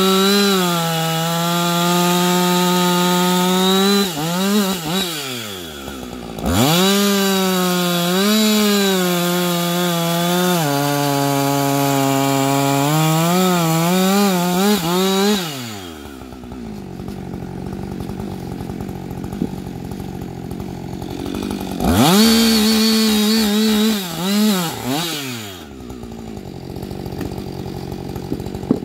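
Husqvarna 560XP two-stroke chainsaw with a ripping chain, running at full throttle in three spells. Its pitch sags and recovers as it cuts into wood. Between spells the engine drops back to idle.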